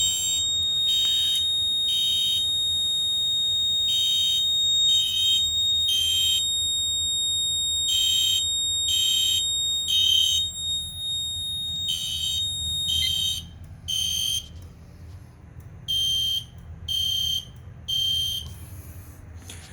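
Smoke detector sounder and fire alarm horn going off in the temporal-3 evacuation pattern after a smoke test: three short high-pitched blasts about a second apart, then a pause, over and over, with the detector's beeps kept in step with the horn by the notification circuit. A steady high tone sounds along with them for about the first thirteen seconds, then stops, leaving the three-blast pattern alone.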